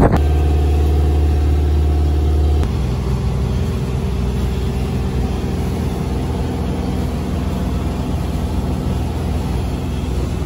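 A sailboat's engine running steadily as the boat motors along: an even, low drone with a steady hum. About two and a half seconds in it drops a little in level and the deepest part of the hum weakens.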